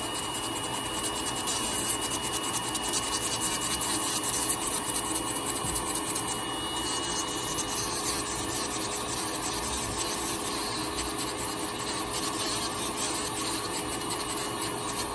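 Electric podiatry nail drill with a small rotary burr grinding down a thick, crusty toenail: a steady rasping grind, with a thin high whine in the first half.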